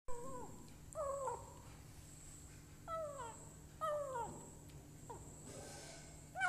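Kitten making short 'nom' calls while it eats, about five of them, each a brief mew that falls in pitch.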